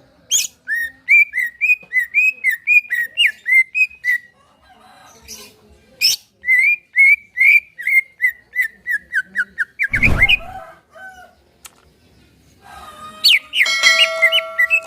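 Cucak ijo (green leafbird) singing: two long runs of quick, sweeping whistled notes at about three a second, then near the end a busier phrase with held whistled tones. A thump about ten seconds in.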